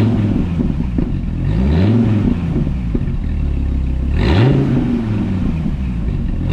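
Dodge Viper V10 engine being revved in short throttle blips, the pitch sweeping up and falling back about a second and a half in and again about four seconds in, between steady idling.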